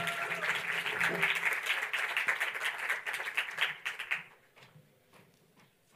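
Audience applauding, dying away about four seconds in, with a few last scattered claps.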